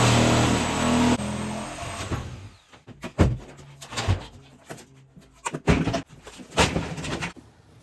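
Milwaukee reciprocating saw running hard for about two seconds, then winding down with a falling whine. Several heavy knocks follow.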